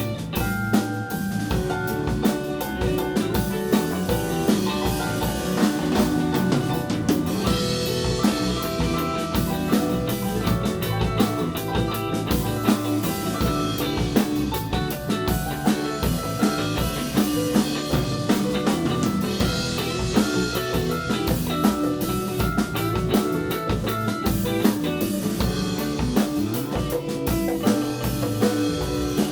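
A live band playing an instrumental passage: drum kit and guitar over a steady beat, with bass and other instruments filling in.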